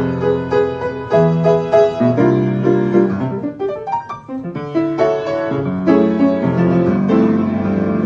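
Piano playing an instrumental passage of struck chords and melody notes, thinning out briefly about halfway through before the chords come back.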